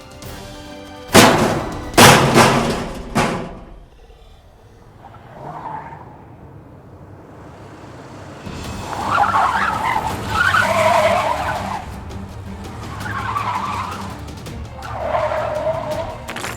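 Three loud crashing knocks about a second apart near the start, then a Losi RC rally car driving in repeated surges of motor and skidding tyres.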